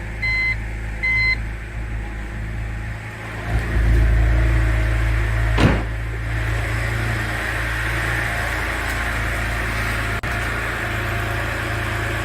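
BMW Z4 roadster with its inline-six engine: a dashboard warning chime beeps twice at the start, then the engine is started and catches with a brief flare near the middle before settling into a steady idle.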